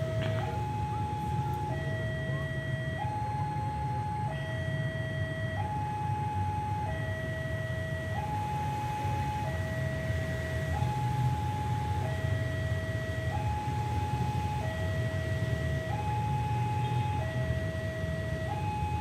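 Two-tone hi-lo warning siren sounding steadily, switching between a higher and a lower tone about every second and a quarter, over a steady low rumble.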